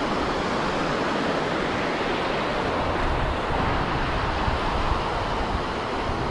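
Shallow surf washing in over the sand in a steady hiss, with wind buffeting the microphone as a low rumble from about halfway through.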